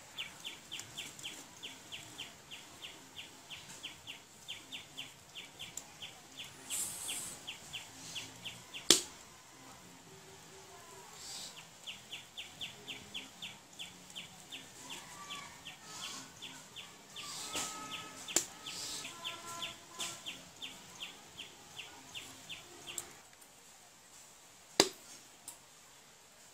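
A bird calling with a rapid, even series of short high chirps, about four a second, in two long runs with a pause between. Two sharp knocks stand out, one in the pause and one near the end.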